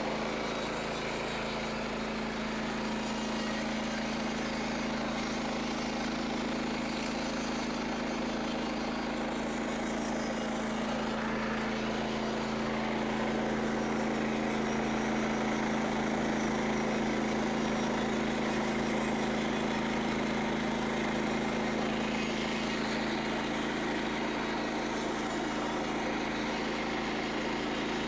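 Frontier OS27 sawmill's small gasoline engine running at a steady speed, a little louder in the middle stretch.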